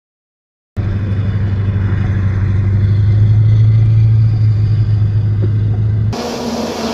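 Military air-cushion landing craft (LCAC hovercraft) running as it comes up the beach: a loud, steady low engine drone that starts abruptly about a second in. Near the end it switches suddenly to a harsher, hissier sound with higher tones.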